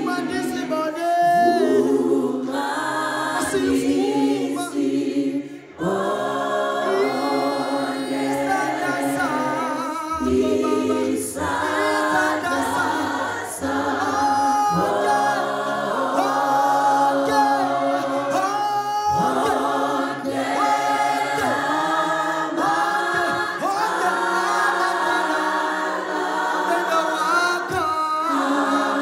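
A gospel vocal group singing in harmony, with a male lead voice over backing singers, in isiXhosa.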